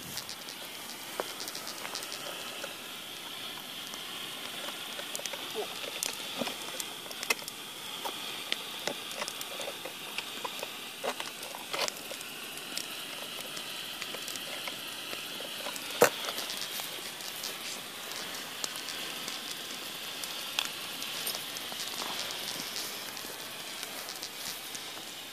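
An expired hand-held orange smoke flare burning with a steady hiss, with scattered crackles and pops throughout and one sharp, louder pop about two-thirds of the way through.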